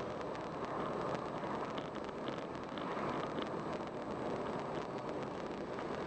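Steady road noise of a car driving along a paved highway, a constant rush of tyres on asphalt and wind with no distinct engine note. A few faint, short high blips come in around the middle.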